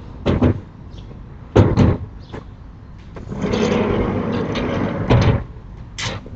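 Sliding storm shutters (amado) being pushed open: a series of knocks and thumps, with a rattling rumble along the track lasting about a second and a half in the middle.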